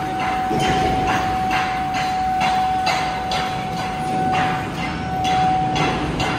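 Steady, rhythmic hammer blows, about two to three a second, ringing on steel, with a steady whining tone running underneath.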